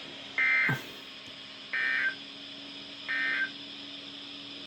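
Three short bursts of Emergency Alert System (SAME) digital data, a warbling two-tone screech, sounded over a weather radio broadcast: the end-of-message code that closes a severe thunderstorm warning. A faint steady hum runs underneath, with a brief low thump just before the first burst ends.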